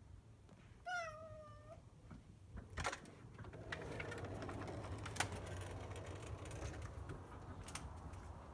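A Maine Coon cat gives one meow about a second in, about a second long with its pitch falling slightly, asking to be let out the door. It is followed by a few sharp clicks and a steady rushing noise.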